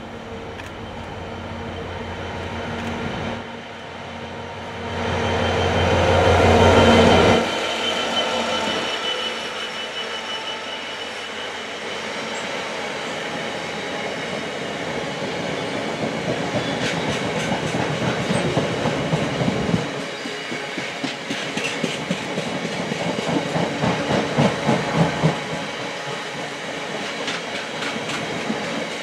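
A long train passing close by. Its leading end is loudest, a deep rumble about five to seven seconds in that drops away suddenly. Then a long line of vehicles rolls past, clattering rhythmically over the rail joints with a thin wheel squeal.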